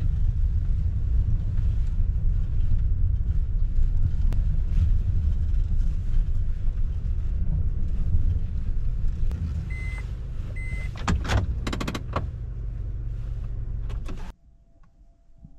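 Car running with a steady low rumble that eases off after about eight seconds. Two short high beeps come a little before the end, then a few clicks, and the rumble cuts off suddenly near the end.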